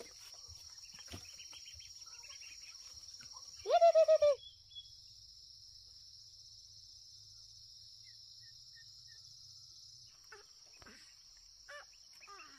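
Insects droning in a steady, high, even buzz. About four seconds in comes one loud, short animal call of about five quick pulses.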